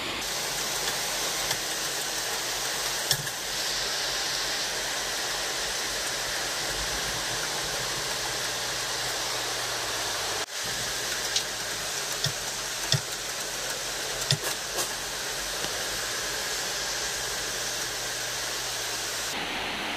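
Shop press working as it slowly compresses a Toyota 2KD hydraulic timing-belt tensioner: a steady hiss with a low hum underneath, and a few light metallic clicks. Rain noise runs beneath it.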